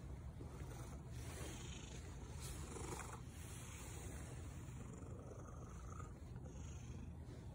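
Orange tabby cat purring close to the microphone, a steady low rumble.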